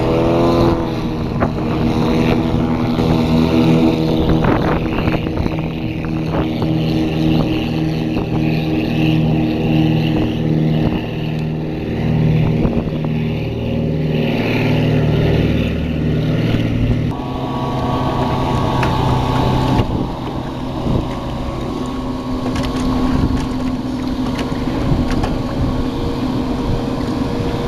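Boat outboard motor running under way, a steady engine note whose pitch pattern changes abruptly about 17 seconds in.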